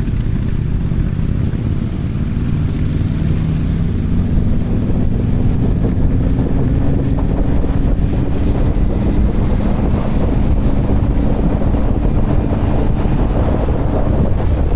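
Motorcycle engine running under way, the engine note climbing slowly in pitch for several seconds, with heavy wind noise on the microphone.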